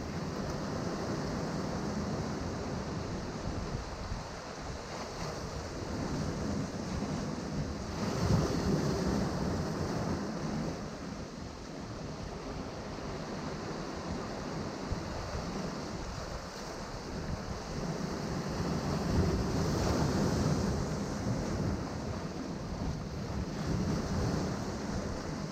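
Sea surf washing and breaking against rocks below a cliff, a continuous rush of water that swells louder about eight seconds in and again around twenty seconds.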